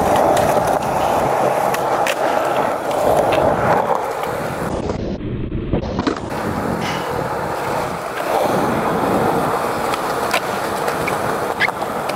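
Skateboard wheels rolling over concrete with a steady roar and scattered small clicks. The rolling drops away briefly about five seconds in and ends in a single clack of the board.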